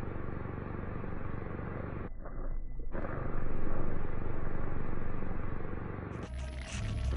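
A low, noisy rumbling drone, with a crackling texture coming in near the end.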